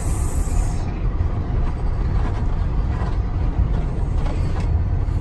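Steady low rumble of engine and road noise inside the cab of a class C motorhome driving along, with a brief hiss near the start.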